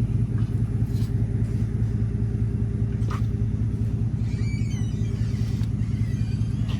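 An engine running at a steady speed, a low even rumble. A few short high chirps come through about four to five seconds in.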